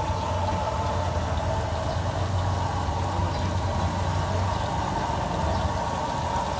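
Battered food frying in a large steel bowl of hot oil, a steady bubbling sizzle over a constant low hum.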